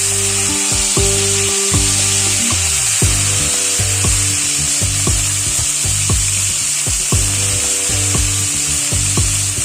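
Cauliflower florets sizzling steadily as they fry in hot mustard oil in a kadai, under background music.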